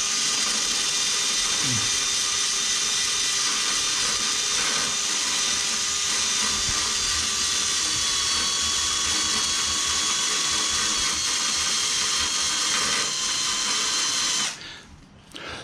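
Small electric drill running at a steady speed with a mounted grinding wheel, grinding paint off a motorcycle frame down to bare metal for an electrical ground. The whine holds steady and cuts off about a second before the end.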